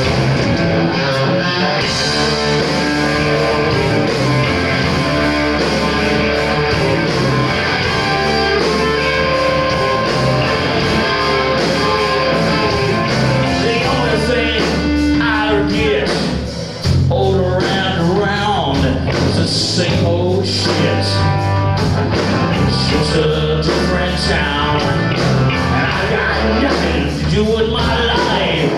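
Hard rock band playing live through stage amplification: distorted electric guitars over bass guitar, loud. About halfway through the music briefly drops off, then the band comes back in on a new part.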